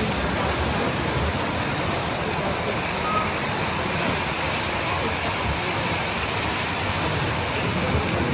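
Several O gauge model trains rolling past close by on three-rail track: a steady noise of metal wheels running on the rails.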